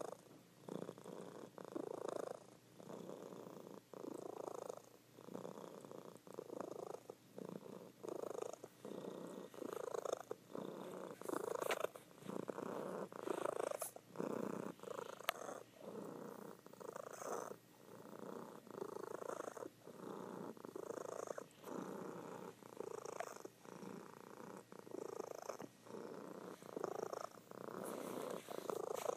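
Domestic cat purring while asleep, the purr swelling and dropping with each breath about once a second.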